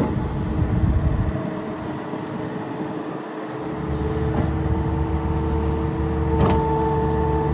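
Case TV370 compact track loader's diesel engine running with a steady whine; its low rumble drops away for a couple of seconds and then comes back.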